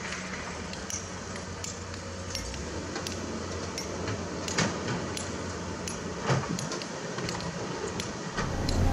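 Komatsu PC200 excavator's diesel engine running steadily, with scattered sharp metallic clanks and knocks as the bucket works the mud; the two loudest knocks come about four and a half and six seconds in.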